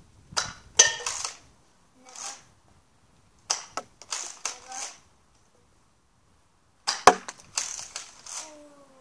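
Nerf blasters firing foam darts: a sharp snap about a second in, two more around three and a half seconds, and another about seven seconds in, each followed by a short rattle. A falling whine sounds near the end.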